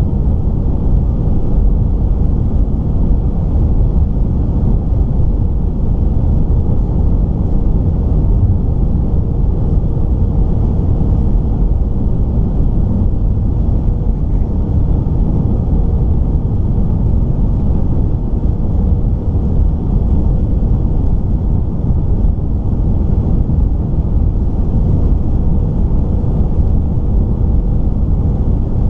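Airbus A319 cabin noise on final approach: a steady low rumble of the engines and airflow, with a faint steady hum running through it.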